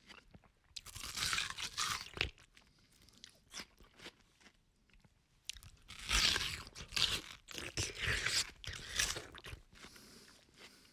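A person biting and chewing watermelon: wet, juicy crunches in two spells, the first about a second in and a longer one in the second half, with quieter chewing between.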